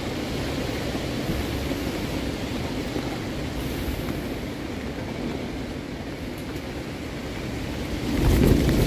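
Storm wind blowing against a tent, heard from inside: a steady rushing on the fabric. Near the end a stronger gust comes in and the fabric starts flapping in quick, irregular snaps.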